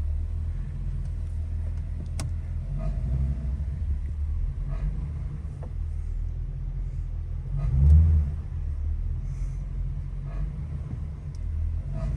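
2007 Ford Crown Victoria's 4.6-litre V8 running in drive with the gas pressed, heard from inside the cabin: a steady low rumble that swells about eight seconds in, with a few faint ticks. These are the conditions that bring on the passenger-side rattle, which appears only under throttle in gear and not in park or neutral.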